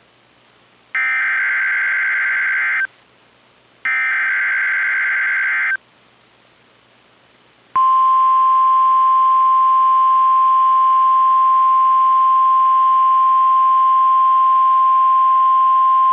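NOAA Weather Radio Emergency Alert System signal: two screechy bursts of SAME digital header data, about two seconds each with a short pause between, then, about eight seconds in, the steady 1050 Hz warning alarm tone begins and holds.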